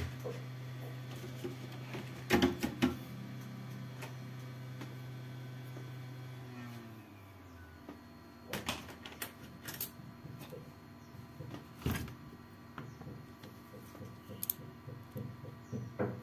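Small clicks and taps of handling parts and tools on a workbench as a hard drive's circuit board is refitted. A steady low electrical hum runs underneath and fades out about seven seconds in.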